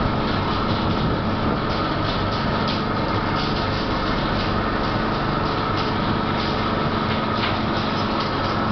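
A fishing boat's engine running steadily, a constant noise with a low hum and a higher steady whine, with light scattered knocks over it.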